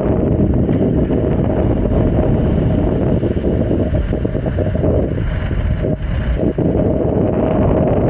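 Wind rushing over the microphone of a moving two-wheeler, a loud, steady low rumble that eases briefly a few times past the middle.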